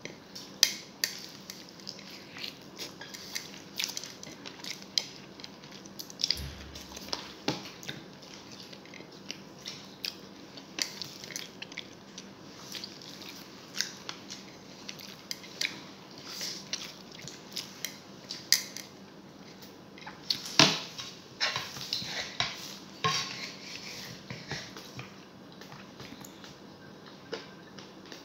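Close-up eating sounds: cutlery clinking and scraping on a ceramic plate of rice, with chewing, heard as irregular sharp clicks over a faint steady background hum. The loudest clatter comes about twenty seconds in.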